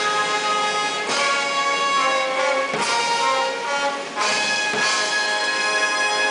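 Brass band playing slow, held chords that change every second or two.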